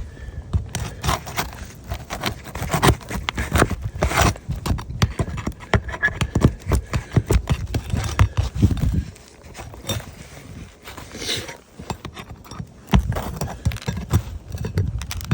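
Flat bar worked under roof shingles to pry out a nail: an irregular run of metal knocks, clicks and scrapes, busiest for the first nine seconds, sparse for a few seconds, then picking up again near the end.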